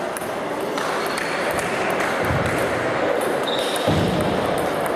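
Table tennis rally: the ball clicking off bats and table, heard over the steady din of other games and voices in a large sports hall, with two dull low thumps about two and four seconds in.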